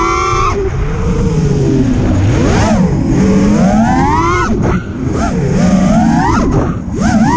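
FPV racing quadcopter's brushless motors and propellers whining in flight, the pitch rising and falling in repeated swells as the throttle is punched and eased, with brief drops in the whine near the end as the throttle is cut.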